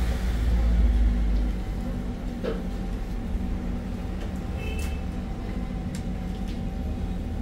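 Steady low rumble of a moving road vehicle, with a constant hum over it and a few light clicks.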